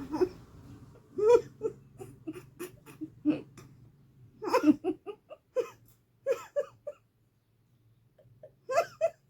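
A woman laughing and giggling in many short bursts while tickling the inside of her nose with an ear-cleaning stick, with a brief pause about seven seconds in.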